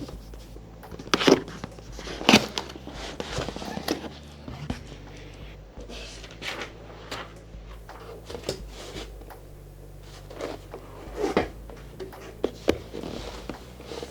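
Keyboard packaging being handled and opened: irregular knocks, scrapes and rustling, with the sharpest knocks about a second in, just after two seconds, and again around eleven seconds.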